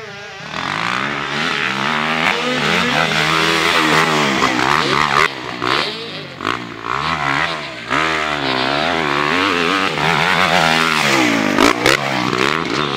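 Kawasaki motocross bike's engine revving up and down over and over as the throttle is opened and shut through the track's jumps and bumps. It gets loud about half a second in.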